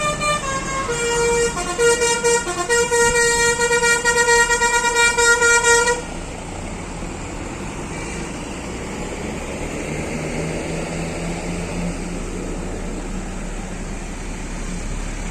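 Bus telolet horn, a multi-tone musical air horn of the Basuri type, playing a stepped, tooting melody that stops suddenly about six seconds in. A steady din of bus engines running is left after it.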